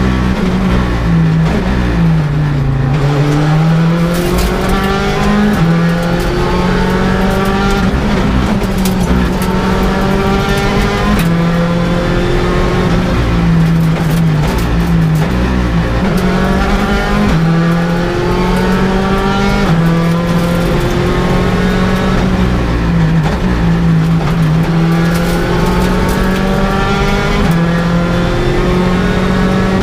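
Hyundai i20 R5 rally car's 1.6-litre turbocharged four-cylinder engine heard from inside the cabin at stage pace. The engine revs up over and over, pitch climbing through each gear and dropping back at the shifts and under braking, with scattered sharp clicks and clunks.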